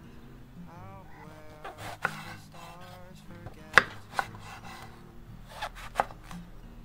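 Chef's knife cutting through a raw eggplant and knocking on a wooden cutting board: about six separate cuts, the loudest a little past halfway.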